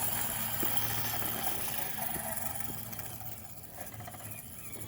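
Electric motor and geartrain of an RC rock crawler with a 550-size 13-turn brushed motor whirring steadily as it crawls in low gear, easing off briefly near the end.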